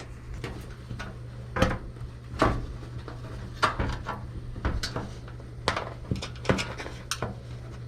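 Irregular clicks and knocks of hard plastic and metal parts being handled and fitted together while a switch is aligned on a GE washing machine's cabinet, over a steady low hum.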